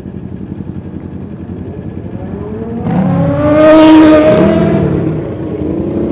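Motorcycle engine running on the road, then a much louder engine surge about three seconds in that swells for a second or so and dies away by about five seconds, with hiss and crackle at its peak.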